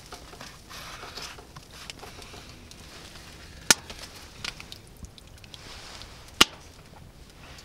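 Rustling and small handling sounds of camp cooking as soy sauce is added and a spoon is worked in a pot of soup, with two sharp clicks, one near the middle and another a little under three seconds later.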